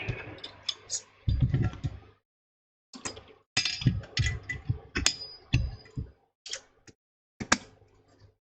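Small tools being picked up and set down on a repair bench: an irregular run of clicks, taps and light knocks.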